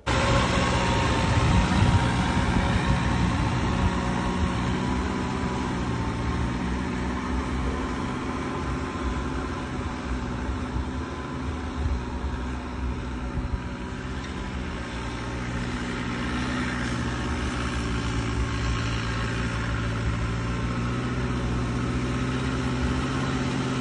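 Mahindra Arjun 605 tractor's diesel engine running steadily under load as it pulls a 17-tine cultivator through the field.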